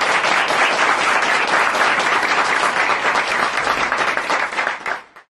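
Audience applauding, steady and loud, cut off suddenly near the end.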